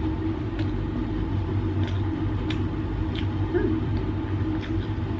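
A steady low mechanical hum, with several faint clicks of someone chewing a mouthful and handling a metal spoon.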